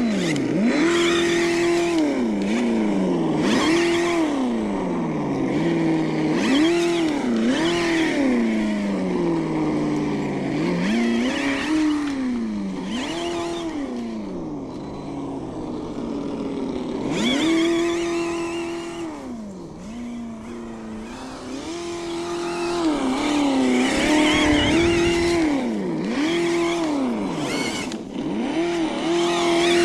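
ESS-One engine sound simulator on an RC4WD 1/10 crawler truck playing a simulated engine that revs up, holds at a flat top pitch, then drops back, over a dozen times in a row as the throttle is blipped. Bursts of hiss from the truck's tyres and drivetrain come and go.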